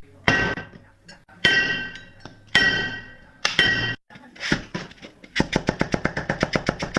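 Four sharp strikes about a second apart, each ringing briefly with a clear tone, then a fast run of taps, about eight a second, through the last second and a half.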